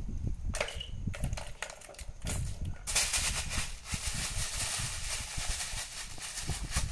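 Cats batting at a plastic cat track toy: the balls and plastic clatter in a run of light clicks and knocks. About three seconds in, a steady hissing rustle starts and carries on under the clicks.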